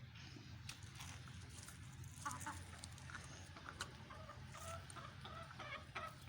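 Chickens clucking quietly in short, repeated calls, most of them in the second half, with a few sharp clicks among them.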